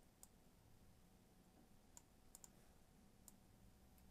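Faint computer mouse clicks, about five scattered over a few seconds, two in quick succession just past the middle.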